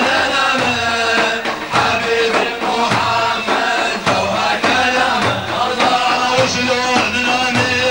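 A man singing a Sufi devotional praise song in Arabic, with accompanying music and percussion keeping a steady beat.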